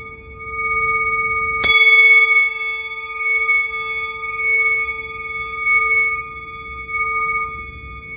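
A singing bowl rings with a steady, pulsing hum. It is struck once about a second and a half in, adding a bright, higher ring that slowly fades.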